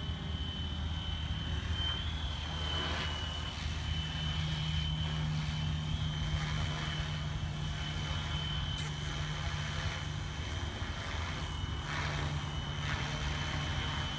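Fly Wing FW450 electric RC helicopter in flight: a steady high motor whine over the low buzz of the spinning rotor blades, the whine wavering slightly in pitch.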